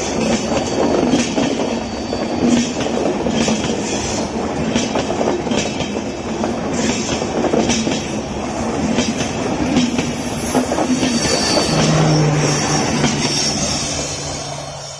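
LHB passenger coaches of an Indian Railways express rolling close by: a steady rumble of wheels on rail with repeated clicks over the rail joints, fading away near the end as the last coach passes.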